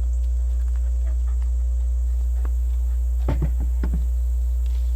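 A steady low hum throughout, with scattered light knocks and scuffs and a short cluster of them about three seconds in.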